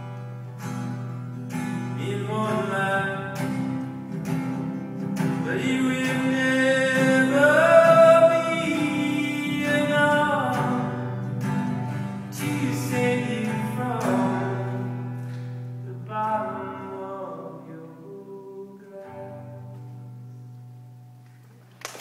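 A man singing with his own acoustic guitar, a slow folk song played live. It is loudest in the middle and grows softer over the final bars, fading out near the end as the song closes.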